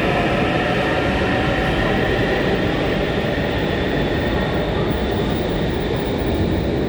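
Sydney electric suburban train running: a steady rumble with faint whining tones that drift slowly in pitch.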